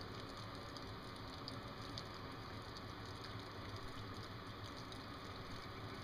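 Faint, steady outdoor background noise: a low hum under an even hiss, with a few tiny ticks.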